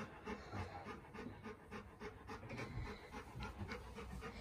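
Alaskan Malamute panting, quick and even.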